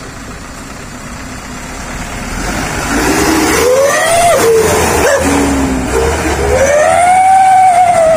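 Hino Dutro truck's diesel exhaust fitted with a 'wolf' whistle tip (knalpot serigala), howling as the truck pulls away under throttle: a pitch that rises and falls twice, the second howl longer, over the engine's low rumble.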